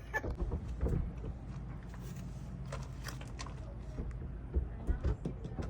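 Irregular small clicks and scrapes of a hand pick digging at gelcoat blisters on a fiberglass hull, over a low steady rumble.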